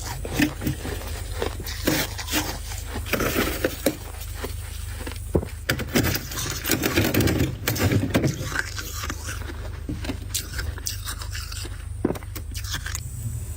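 Freezer frost being scraped and crunched: irregular gritty crunches and scrapes, dense at first and thinning out after about nine seconds, over a steady low hum.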